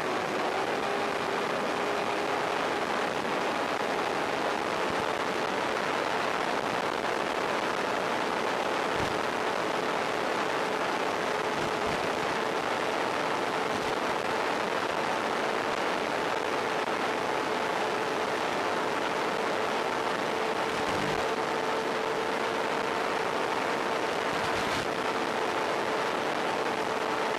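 Sound from a model plane's onboard FPV camera in flight: a steady rushing noise with a steady droning tone from the motor and propeller. A few faint knocks come through.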